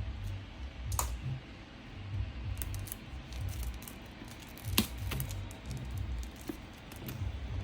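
Irregular sharp clicks and small taps from things being handled, over low bumping handling noise; a click about five seconds in is the loudest.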